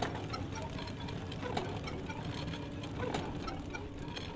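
Manual wheelchair being pushed along an asphalt road. Its wheels roll with a steady rattling rumble, and a sharp click comes about every one and a half seconds.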